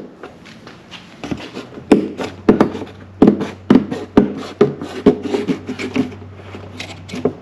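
Volvo 240 door window trim moulding being pried up and lifted off, giving an irregular run of sharp clicks and knocks, with a faint steady low hum underneath.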